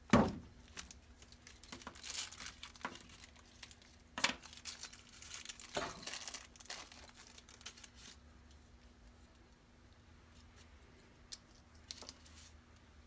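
Small plastic accessory bags crinkling and rustling as hands handle and sort gimbal mounts and parts, with a sharp knock right at the start and a few light clicks of parts set down later; quieter in the second half.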